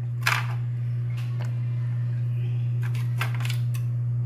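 Ice cubes clicking as they are handled and dropped onto a full glass of lassi: about seven sharp clicks spread through, the first the loudest, over a steady low hum.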